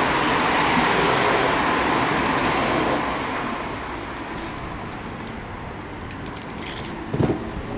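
Road vehicle noise, a steady rushing that fades away about three seconds in, with a short thump near the end.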